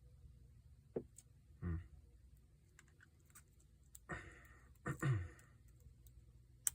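Faint scattered clicks and ticks of a McTickler lock pick working the pins inside a Lockwood ASSA ABLOY 334B45 padlock, with a few duller handling sounds about four and five seconds in and a sharp click at the very end.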